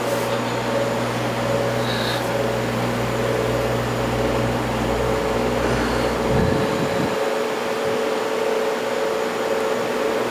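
Grow-room ventilation fans running: a steady whirring hum with a constant tone in it. A deeper rumble underneath fades out about six and a half seconds in.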